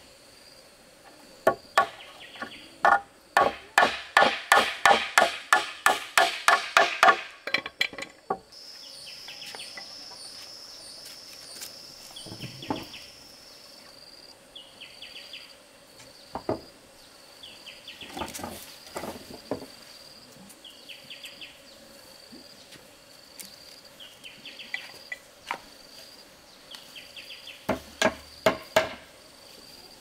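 Repeated hard strikes of a hand tool on wood: a fast run of about four blows a second for several seconds, then single blows and short runs. Insects drone and chirp steadily underneath.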